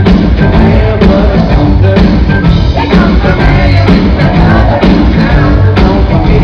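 Live rock band playing loudly, with drums and singing.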